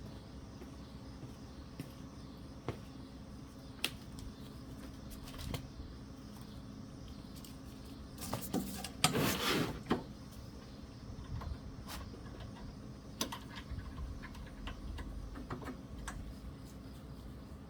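Light clicks and taps of small parts and hand tools being handled during a carburetor teardown. About halfway through comes a louder clatter lasting a couple of seconds, over a steady low hum.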